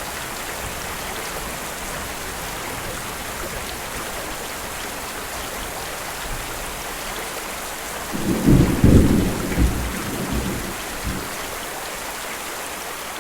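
Steady rain falling, with a low roll of thunder about eight seconds in that rumbles for around three seconds and dies away.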